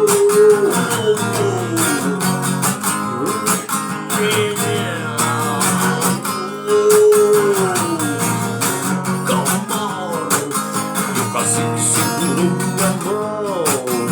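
Rock band playing an instrumental passage: guitar chords and a lead line with long bent notes over a steady drum beat.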